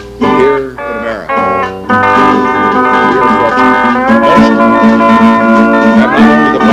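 Band music: short choppy notes, then a chord held for several seconds over a steady low note, with notes sliding upward in pitch about four seconds in and again near the end.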